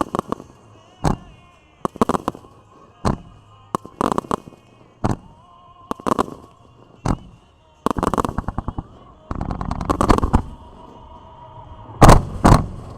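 Fireworks display: aerial shells bursting with sharp bangs about once a second, with stretches of rapid crackling reports in the middle and two loudest bangs close together near the end.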